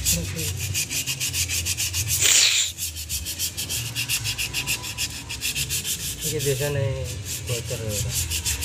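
Hand-held sandpaper rubbing the shoes of a Honda Jazz rear drum brake in quick, even back-and-forth strokes, with one harder scrape a little over two seconds in. The shoes are being sanded clean of mud and grime behind a sticking handbrake.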